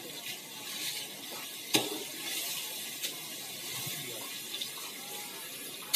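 Spice paste sizzling in hot oil in an aluminium wok as a spatula stirs it. The spatula knocks sharply against the wok just under two seconds in, and more lightly about a second later.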